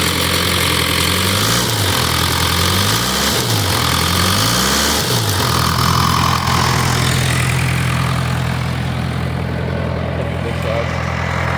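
Cummins 4BT four-cylinder turbodiesel in a Case 580K backhoe running after a first start from sitting. Its speed rises and falls several times in the first half, then it settles to a steady idle. The owner judges it to have a bad head gasket.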